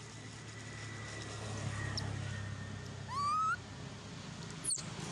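A macaque's coo call: one rising, whistle-like note lasting about half a second, about three seconds in. A very short, high, falling chirp follows near the end.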